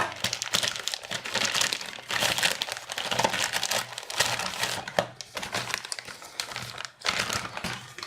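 Packaging crinkling and rustling as it is handled and opened, with dense irregular crackling that pauses briefly about seven seconds in.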